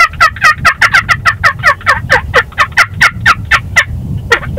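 Turkey yelping: a long, fast run of short notes, about five a second, each one dropping in pitch, then after a brief pause near the end slower, longer yelps begin.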